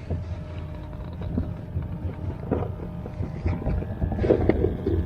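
Steady low rumble of wind on the microphone, with scattered light knocks and clicks from handling fishing gear and bait.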